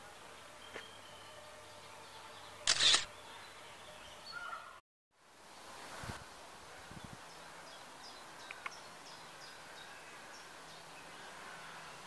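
Open-air ambience with faint, short, high chirps of small birds in the second half. There is a brief loud rustle about three seconds in, and the sound drops out for a moment near the middle.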